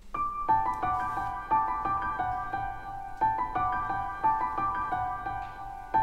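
Background music: a piano tune with notes struck at an even pace of about three a second.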